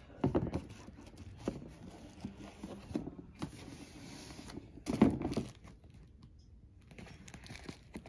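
Handling noise as leather dress boots and their cardboard shoebox are touched, moved and one boot is picked up: irregular rustles, scrapes and soft knocks, with louder bumps just after the start and about five seconds in.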